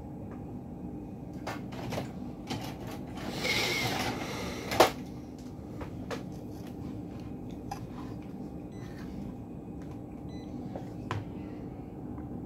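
Handling noise on an electronics workbench: scattered light clicks and knocks as a circuit board and multimeter probes are moved about, a brief rustle, and one sharp click a little before five seconds in, over a steady low background hum.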